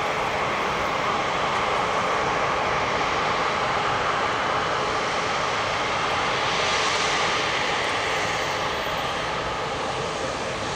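Airbus A350-900's Rolls-Royce Trent XWB turbofan engines running steadily as the jet taxis onto the runway. The jet noise is even, with a brief rise in hiss about seven seconds in, and it gets slightly quieter near the end.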